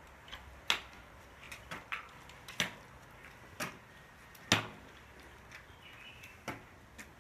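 Footsteps and the taps of a metal forearm crutch on a gritty paved street during a slow walk: irregular sharp clicks, the loudest about four and a half seconds in.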